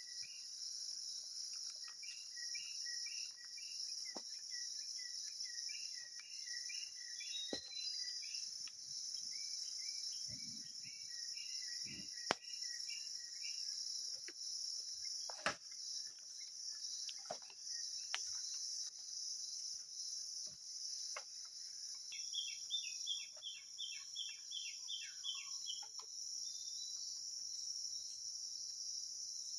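Night insects, crickets among them, trilling steadily and shrilly. Twice, a run of rapid, evenly repeated chirps from another animal comes through, several a second. A few sharp clicks are scattered through it.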